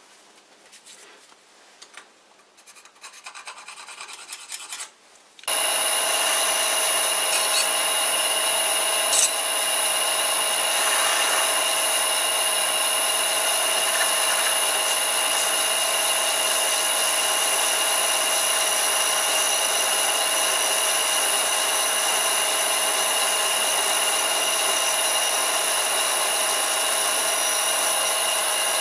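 Lathe running under a variable frequency drive with a steady, high whine, while a lathe tool bit takes a continuous scraping cut on the spinning workpiece. It comes in abruptly about five seconds in, after a few faint clinks. The cut is one the machinist thinks is not going quite right, with chips welding onto the tool tip.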